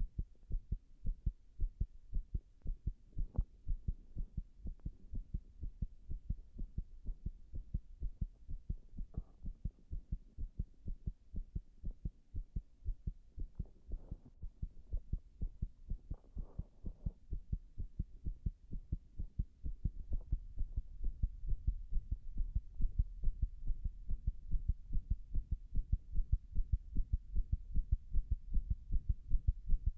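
Human heart sounds picked up at the chest: a continuous run of low lub-dub thumps, growing louder about two-thirds of the way through, with a few faint rustles in the middle. The heartbeat is under sustained pressure and is presented as arrhythmic.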